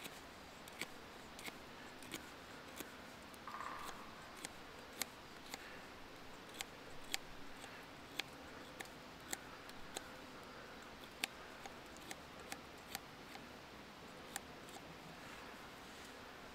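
Swiss Army pocket knife cutting into wood: faint, sharp, irregular clicks of the blade as it whittles, roughly one or two a second, dying away a couple of seconds before the end.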